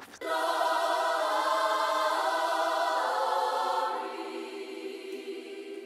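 A choir singing one long held chord that fades away from about four seconds in.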